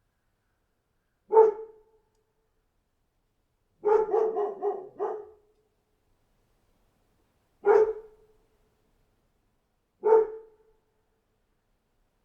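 A dog barking: a single bark, then a quick run of about five barks, then two more single barks a few seconds apart.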